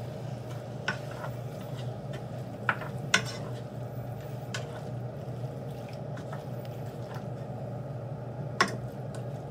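Raw chicken pieces and sliced onions being turned and mixed by hand in a nonstick pan, with soft squishing and a few sharp clicks against the pan, over a steady low hum.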